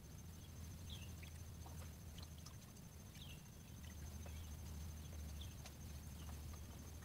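Faint chirping of a small animal: a few short, high chirps that dip in pitch, spaced a second or two apart, over a low steady rumble and a thin high steady tone.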